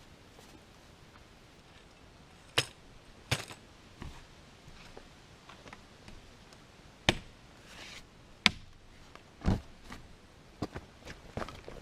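Camping gear being handled and set down: a string of separate sharp knocks and clacks, irregularly spaced, over a quiet background hiss.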